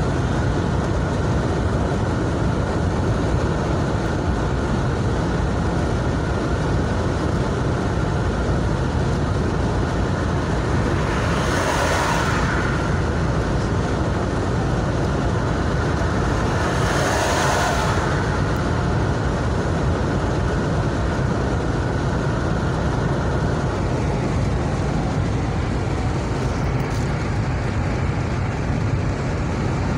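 Steady road and engine noise heard inside a car cruising on a highway, a low rumble of tyres and engine. Two brief swells of louder noise come about twelve and seventeen seconds in.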